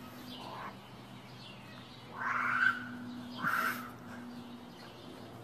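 Two short, harsh animal calls about a second apart, over a faint steady low hum.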